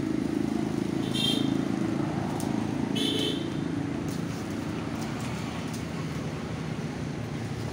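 Road traffic passing, with a vehicle's engine hum fading over the first few seconds. Two short high tones come about a second and three seconds in, and a few light clicks follow.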